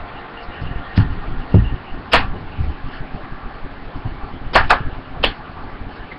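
Handling noise close to the webcam microphone: a few soft knocks, then sharp clicks, two of them close together about four and a half seconds in, over a steady hiss.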